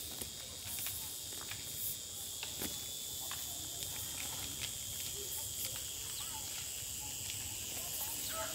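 Insects chirring steadily in a high pitch, with scattered light clicks as a coil of plastic-sheathed electrical cable is handled.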